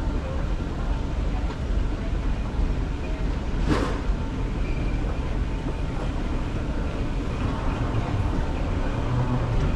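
Steady low rumble of a moving vehicle, with one sharp clack a little under four seconds in.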